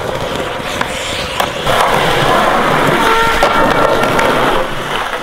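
Skateboard wheels rolling over asphalt, a steady grinding hiss that gets louder about a second and a half in.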